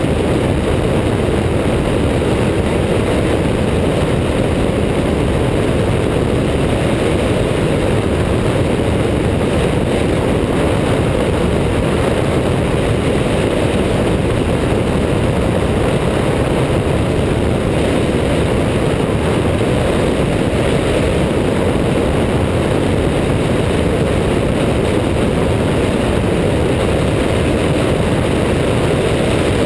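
Stampe SV.4 biplane in cruising flight: its propeller engine runs steadily and evenly, mixed with a heavy rush of wind on the wing-mounted camera.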